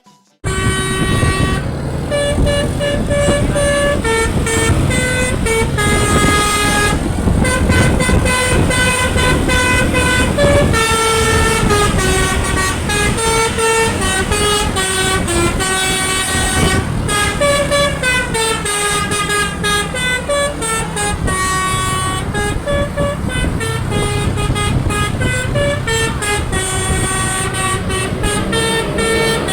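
Basuri multi-trumpet telolet horn on a tour bus, played by hand as a koplo-style tune. It starts about half a second in with horn notes that step up and down in pitch, over the low sound of the bus engine running.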